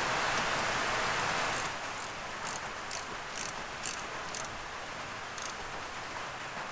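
Ratchet wrench clicking in short strokes, about two clicks a second, as it tightens the mounting bolts of an oil catch can, over a steady hiss of heavy rain.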